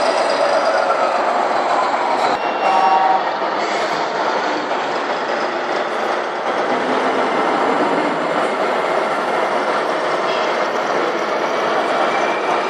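1:14 scale RC trucks running: a steady mechanical rattle and whine from small electric motors and gearing, with a whine falling in pitch in the first second or so.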